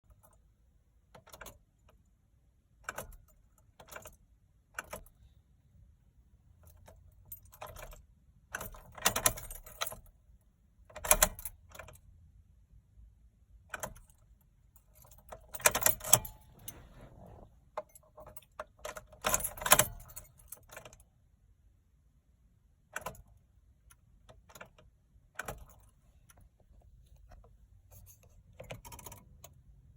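A bunch of keys jangling in short bursts, about a dozen times, loudest around 9, 11, 16 and 20 seconds in, with no engine sound; the key is being worked in a 2014 Honda Civic that won't start on its flat battery.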